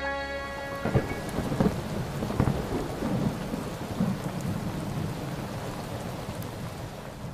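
Heavy rain falling steadily with rolling thunder rumbling over it. The last held chord of the song stops about a second in.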